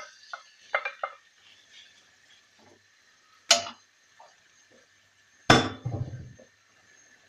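Light clinks of a glass bowl against a non-stick wok as marinated pork belly pieces are tipped in. Then two loud kitchenware knocks a couple of seconds apart, the second with a short dull thud after it.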